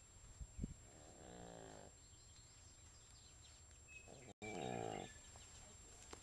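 Pug snoring in its sleep: two snores about three seconds apart, each lasting about a second, the first faint and the second louder.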